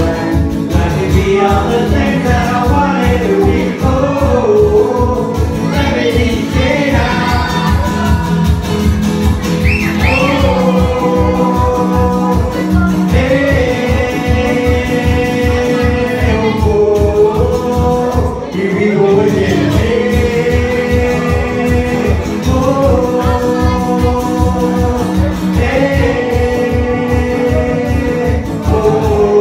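A man singing live to his own strummed acoustic guitar, with long held, wavering notes over a steady strumming rhythm that drops out briefly about two-thirds of the way through.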